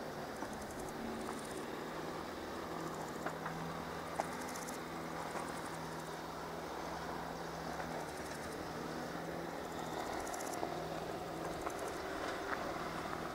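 Steady low engine hum with a held low tone, and insects chirping in short, high, rapidly pulsed bursts every few seconds.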